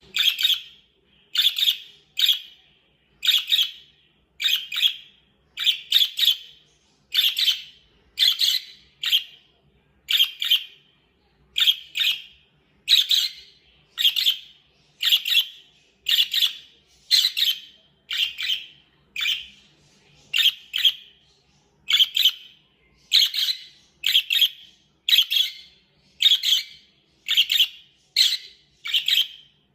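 Budgie chirping: short, sharp chirps repeated a little more often than once a second at a steady pace, the contented call the uploader calls a happy sound.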